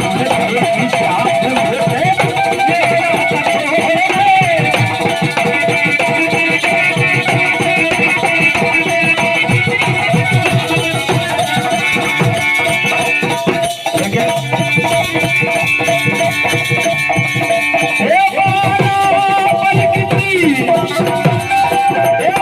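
Instrumental interlude of Indian bhajan music: tabla-style hand drums keep a steady rhythm under a sustained melodic line that bends in pitch.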